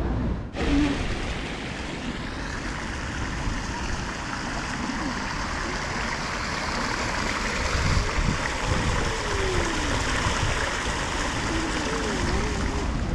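Small ornamental fountain's single jet splashing steadily back into its water-filled basin, starting about half a second in.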